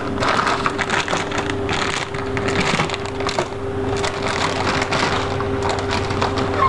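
Plastic pretzel bag crinkling and crackling continuously and irregularly as it is handled and pulled at to get it open.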